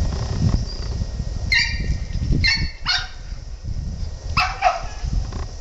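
A dog barking: about five short, high-pitched barks, two close together about a second in, then two more near the end, over a steady low rumbling noise.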